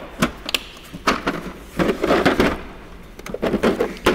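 Hand tools clattering and clicking as they are moved about in a metal toolbox drawer: a run of sharp knocks and rattles, busiest about two seconds in and again near the end.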